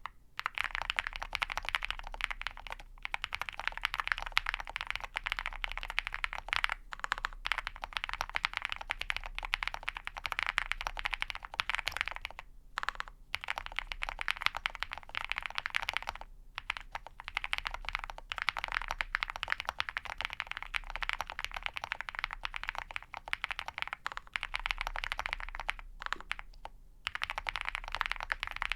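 Continuous typing on a custom mechanical keyboard with a POM plate, lubed (Krytox 205g0) and filmed Ca Phe Sua Da linear switches and PBT keycaps: a steady stream of keystroke clacks, broken by brief pauses about twelve, sixteen and twenty-six seconds in.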